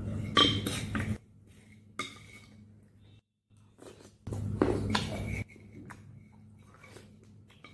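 Plastic spoon clinking and scraping in a glass bowl of soup, close to the microphone, with sips taken from the spoon. There are two louder spells of about a second each and sharp taps between them, and the sound cuts out briefly about three seconds in.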